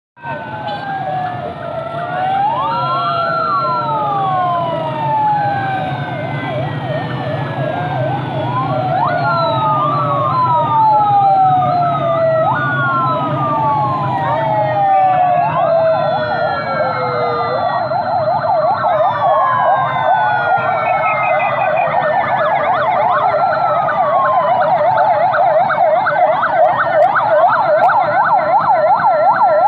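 Several police vehicle sirens sounding at once as a convoy passes. Slow rising-and-falling wails overlap one another, and a rapid yelp takes over through the second half, all over the low rumble of vehicle engines. The sirens grow gradually louder.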